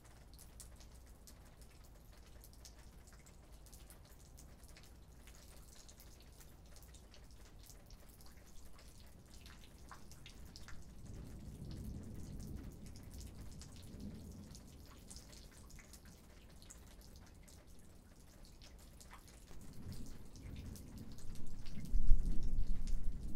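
Light desert rain, with scattered faint drops ticking. A low rumble of distant thunder swells about halfway through, then builds again louder near the end.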